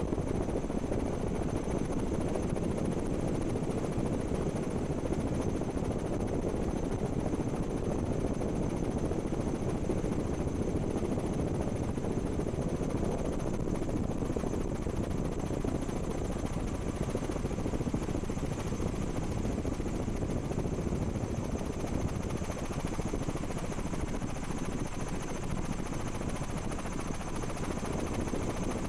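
Helicopter in flight, heard from on board: a steady, unbroken engine and rotor noise that stays even in level throughout.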